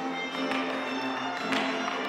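Irish dance hard shoes striking the floor in a hornpipe over a recorded hornpipe tune, with one louder strike about one and a half seconds in.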